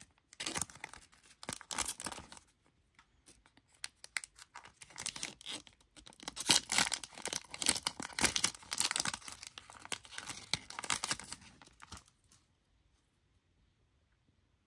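Plastic wrapper of a BBM baseball card pack being torn open and crinkled by hand, in irregular bursts of crackling that stop about twelve seconds in.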